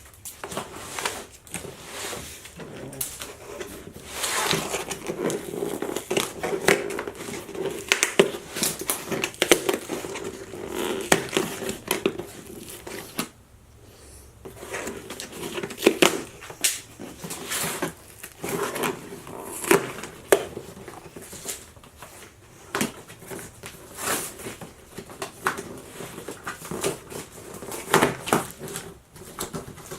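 Cardboard shipping box and its packing material being opened and handled: irregular rustling and crinkling, with scattered clicks and knocks.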